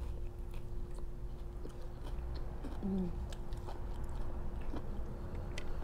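Close-miked mouth sounds of a person chewing a mushroom bao bun, with many small wet clicks and smacks scattered through.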